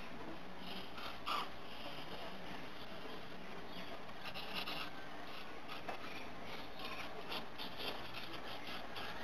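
Felt-tip marker drawing on paper: short, high, squeaky scratching strokes, coming in clusters over a steady background hiss.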